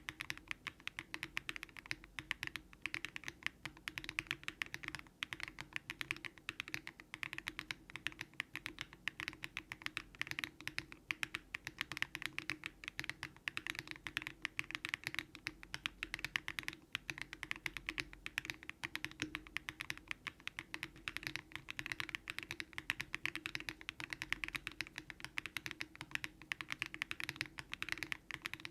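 Continuous fast typing on a Daring Run Polygon-7 custom mechanical keyboard built with Keygeek LM switches, full foam and an FR4 plate: a dense, unbroken stream of keystroke clacks.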